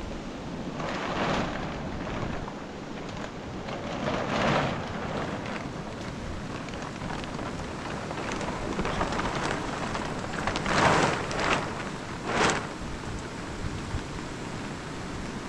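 Steady hiss of rain on a plastic sheet. Several louder rustles of the sheet rise out of it, twice early on and twice close together near the end.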